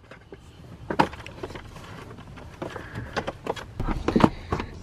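Hard plastic knocks and clicks from an Evenflo infant car seat being fitted. There is a sharp knock about a second in, then a run of clunks and rattles near the end as the carrier is lowered onto its base.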